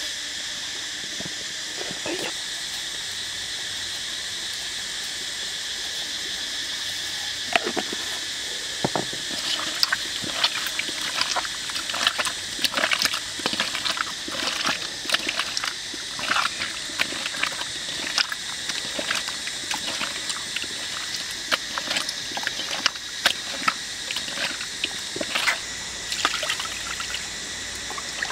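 Water splashing and trickling as raw pork belly is squeezed and rinsed by hand in a wok of water. The splashes are short and irregular and begin about seven seconds in, over a steady high background hiss.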